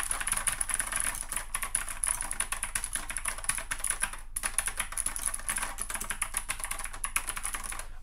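Fast touch-typing on an Ajazz AK510 mechanical keyboard with clicky blue switches: a dense run of sharp key clicks, with one brief pause about four seconds in.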